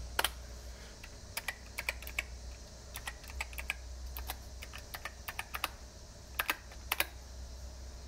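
Keys of a CNF numeric keypad with Alps white switches pressed one at a time, a series of separate sharp keystroke clicks at uneven spacing, some in close pairs.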